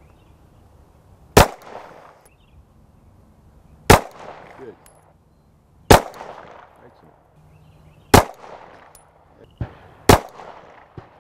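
Five shots from a Glock pistol, about two seconds apart, each with a short echo after it.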